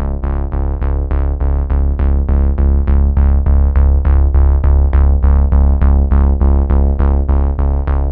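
Background music: a synthesizer track with a heavy, steady bass and a quick, even pulse.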